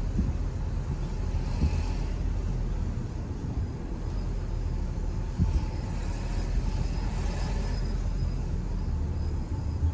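Steady low rumble of a car driving along a street: road and engine noise from the moving vehicle, with a couple of small bumps, one about halfway through and one near the end.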